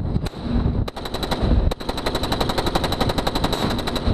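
Mark 38 25 mm deck gun on a guided-missile destroyer firing: a single shot, then a short burst about a second in, then a longer rapid burst of about two seconds that stops just before the end.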